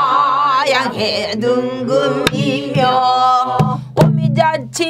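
Pansori singing by a woman: long held, wavering melismatic notes with wide vibrato, accompanied on a buk barrel drum, with a few sharp drumstick strokes on it, one about two seconds in and more near four seconds.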